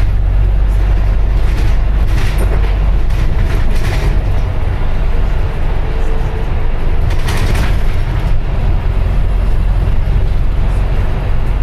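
Interior of a Volvo B5LH Wright Gemini 3 hybrid double-decker bus under way, heard on the upper deck: a steady low rumble from the drivetrain and the road. Brief bursts of rattling and hiss come about two to four seconds in and again near seven seconds.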